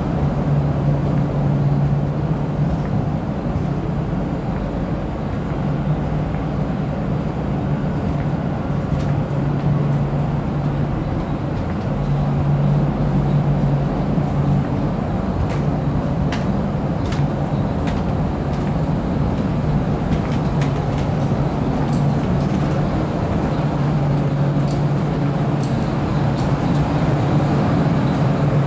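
Steady drone of a working AXE 10 telephone exchange's equipment room: air and fan noise with a low electrical hum that swells and fades several times. A few faint ticks come in around the middle.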